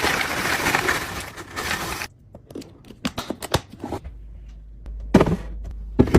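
Crinkly rustling of packaging being handled for about two seconds, then a series of light clicks and taps, and two louder knocks near the end over a steady low hum.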